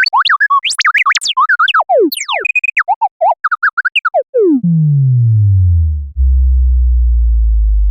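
Synthesized electronic sound effect: a rapid run of short bleeps and chirps sweeping up and down in pitch, then, about four seconds in, a single tone that falls steeply and settles into a low steady drone.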